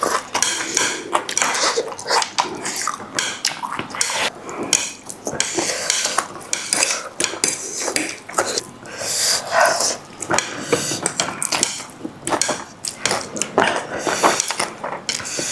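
Close-up mukbang eating sounds: utensils clicking and clinking against a bowl, mixed with irregular wet slurping and chewing of spicy noodles.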